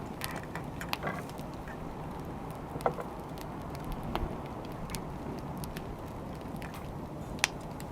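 Wood fire crackling: a steady low rumble of burning with scattered sharp pops, the loudest about three seconds in and near the end.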